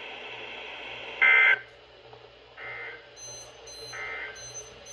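NOAA Weather Radio broadcast sending the EAS/SAME end-of-message data bursts over radio hiss: three short warbling squawks about a second and a half apart, the first the loudest, marking the end of the severe thunderstorm warning. Faint high-pitched beeps come and go over the second half.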